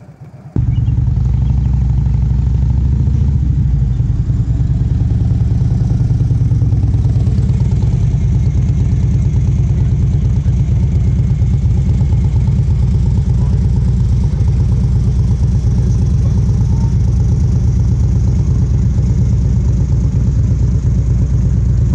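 Harley-Davidson Road King's V-twin engine running steadily at a low, even speed, with no revving. It starts abruptly about half a second in.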